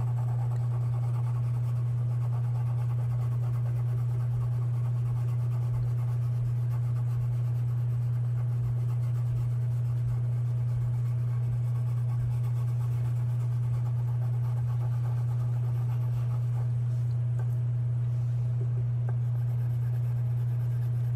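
Steady low electrical hum on one unchanging pitch.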